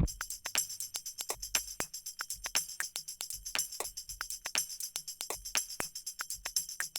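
Background music in a quiet percussion-only passage: a steady tambourine-like jingle with light ticks at a quick, even rhythm.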